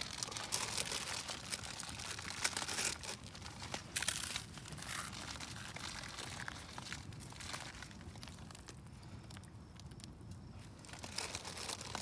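Graham crackers being crushed and crumbled by hand, pieces dropping onto the pizzas: a run of small irregular crunches and crackles, busier in the first half and sparser later.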